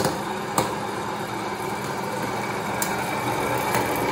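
Electric hot-air popcorn popper running: a steady whir from its fan and heater, with a few sharp pops of kernels.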